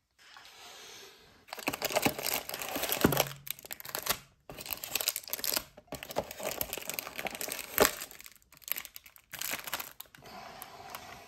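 Crinkling foil trading-card packs and cardboard rustling as the packs are lifted out of a Mosaic NFL hobby box. There is a sharp tap about eight seconds in.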